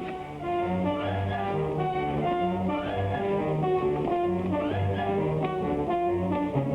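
Background music: an orchestral score playing short repeated stepping phrases.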